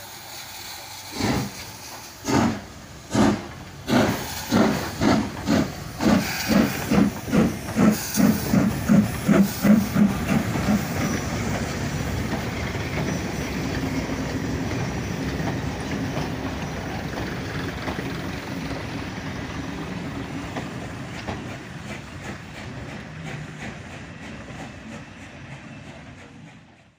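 Southern S15 4-6-0 steam locomotive No. 506 starting a train: slow, separate exhaust chuffs that quicken steadily. As it gathers speed the beats merge into a steady running rumble with wheel clatter, which fades as the train draws away.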